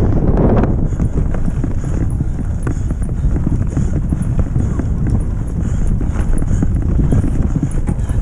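Mountain bike ridden over a rough dirt forest trail: the tyres rumble and the bike rattles with a constant stream of small knocks and clicks over bumps and roots.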